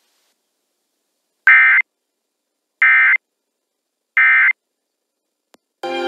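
Emergency Alert System end-of-message code: three short, identical bursts of warbling digital data tones (SAME encoding) about a second and a half apart, marking the end of the alert. A click and other programme audio start just before the end.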